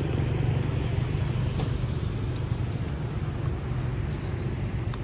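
Street traffic with a motor vehicle engine running steadily, plus one sharp click about a second and a half in.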